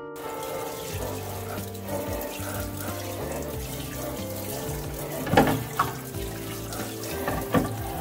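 Kitchen faucet spraying water into a stainless steel sink onto clear acrylic organizer bins, a steady rush of water. The plastic bins knock a few times as they are handled, about five seconds in and again near the end.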